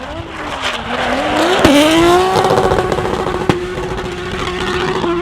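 Car engine revving hard: the pitch dips, climbs sharply about a second and a half in, then holds at steady high revs, with a rushing noise under it. There is a sharp crack as the revs climb and another about halfway through.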